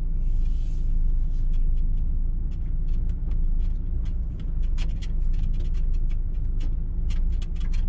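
DAF truck's diesel engine rumbling low inside the cab as the truck rolls slowly over a rough, potholed gravel lane, with many sharp clicks and rattles scattered through. A brief hiss comes at the start.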